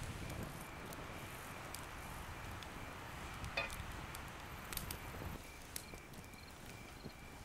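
Quiet crackling of an open wood fire, with a few sharp snaps scattered through it, and a faint insect chirping in a regular rhythm.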